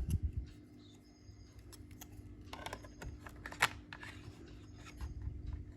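Small scattered clicks and taps of a laptop RAM module being handled and pushed into its memory slot, with one sharper click a little past halfway through.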